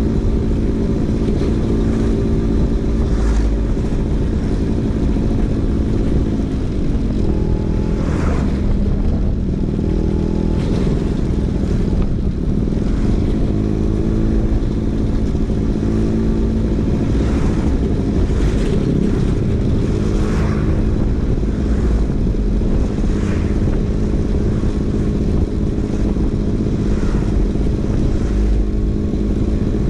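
Vespa PX 150's two-stroke single-cylinder engine running through a DRC Victory racing exhaust while riding. Its note holds steady but drops in pitch twice, about seven seconds in and again near nineteen seconds.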